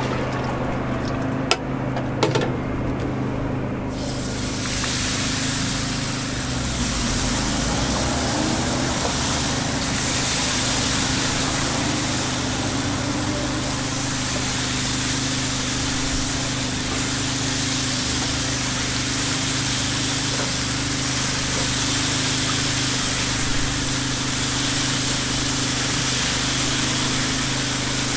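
Takoyaki batter sizzling in a steady hiss as it is dispensed into the hot takoyaki griddle, over a steady low hum. Before the hiss starts, about four seconds in, a few sharp metal clinks of a ladle against the steel batter funnel.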